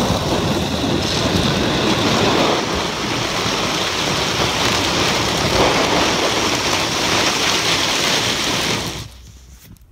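Sheet of plywood pushed through snow and scraping along a concrete driveway: a loud, steady scraping hiss that stops suddenly near the end.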